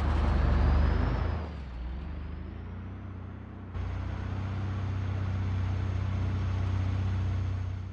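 Truck engine running with a steady low drone and a hiss over it; the sound steps up abruptly about four seconds in.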